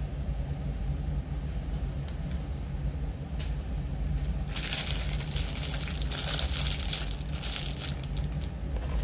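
Rustling, crinkling noise for about three seconds, starting a little over four seconds in, over a steady low hum.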